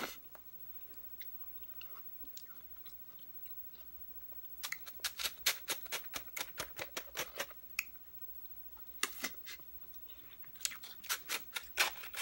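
A person chewing close to the microphone. The mouth clicks come in quick runs of about four or five a second, starting about four and a half seconds in, again briefly around nine seconds, and steadily near the end.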